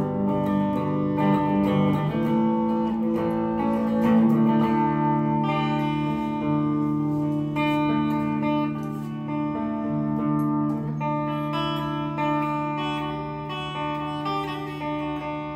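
Electric guitar, a single-cutaway Les Paul-style solid body, played with picked notes and chords left to ring, growing gradually quieter over the last few seconds.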